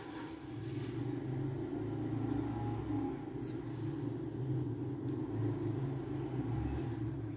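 A steady low rumble that grows louder about a second in, with a few faint clicks of small steel magnet balls being set against one another.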